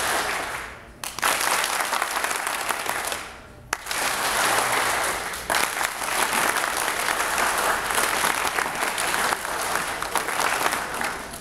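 Audience applause that starts and stops on the performer's cue. It breaks off briefly about a second in and again about three and a half seconds in, then runs on for several seconds and dies down near the end.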